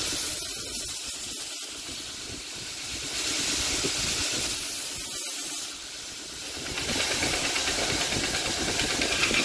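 Belt grinder running with a small stainless san mai knife pressed against the moving belt: a steady grinding hiss of steel on abrasive as the sharp edges of the handle are rounded off. The grinding eases briefly twice, about two seconds and six seconds in, as the piece is lifted and repositioned.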